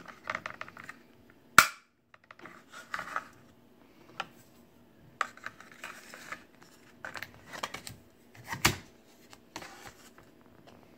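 Fixed-blade knife and its Kydex sheath handled and the blade slid into the sheath: scraping and rubbing of plastic with sharp clicks and knocks, the loudest about a second and a half in and another strong click about three-quarters of the way through as the knife seats in the sheath.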